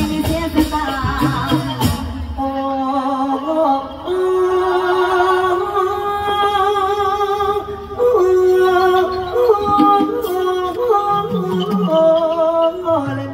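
Thai likay stage singing: one voice holds long, slowly ornamented notes with small turns and slides over a quiet band accompaniment. The first two seconds are fuller band music with percussion strokes.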